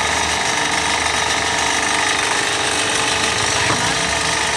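A 3-horsepower motor-driven tyre cutting machine running under load, cutting through a thick tubeless motorbike tyre with a steady, rapid mechanical chatter.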